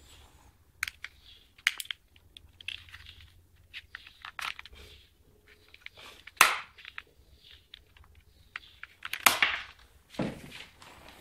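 Handling noise: irregular clicks and knocks with short rustles between them, the loudest knocks about six and a half and nine seconds in.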